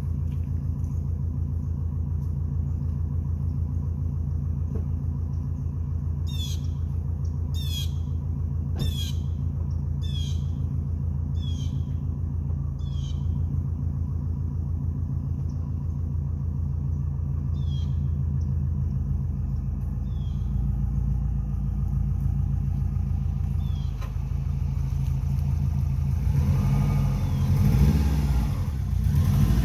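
2002 Subaru WRX's turbocharged flat-four idling steadily through a gutted downpipe, rising briefly near the end as the engine is revved. A bird calls repeatedly in short falling chirps partway through.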